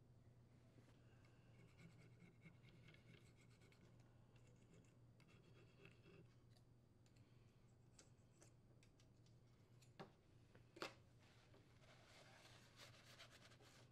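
Near silence, with faint scratching and handling of an aluminium engine crankcase cover as old gasket residue is cleaned off, two light knocks about ten seconds in, and a rag rubbing over the crankcase near the end.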